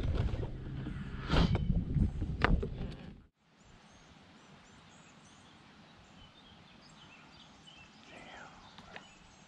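A kayak paddle working the water, with knocks and splashes over a low rumble on the microphone. It cuts off suddenly about three seconds in, leaving faint outdoor background with small birds chirping.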